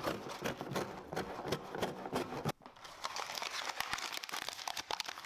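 Packaging being handled: crinkling and crackling, with a brief pause about two and a half seconds in before it picks up again.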